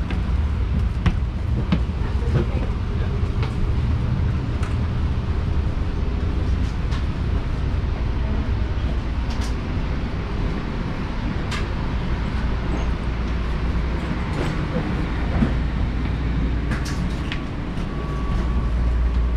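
Interior of a light-rail car: a steady low rumble from the train's equipment, with scattered clicks and footsteps as passengers board and walk down the aisle. The rumble grows louder near the end, and a thin steady tone sounds over it.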